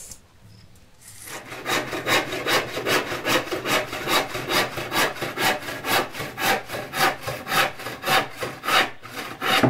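Handsaw cutting through a wooden plank, with quick, even back-and-forth strokes, about three a second, starting about a second in.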